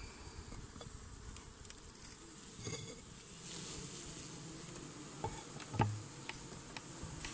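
Honeybees buzzing around the open hive, with a few light clicks and one dull knock nearly six seconds in.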